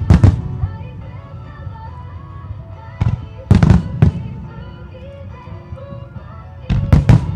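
Aerial firework shells bursting in quick clusters: a double bang at the start, about four bangs between three and four seconds in, and three quick bangs near the end. Music plays underneath for the synchronised display.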